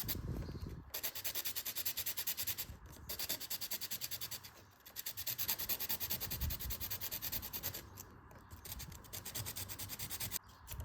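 Charcoal pencil being sharpened with fast, even rubbing strokes. The strokes break off briefly about three and five seconds in and again near the end.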